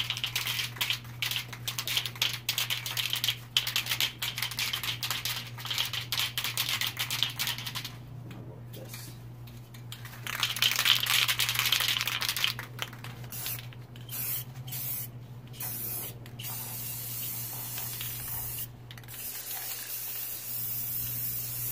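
Aerosol spray can spraying black paint in hisses of varying length: a long crackly hiss for the first several seconds, a loud burst about ten seconds in, then several shorter bursts and a steadier hiss near the end. A steady low hum runs underneath.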